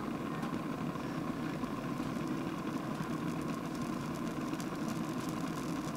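Gas top burner of a Tepro Toronto top-heat steak grill, turned up high and at operating temperature, running with a steady, even hiss and a faint steady tone.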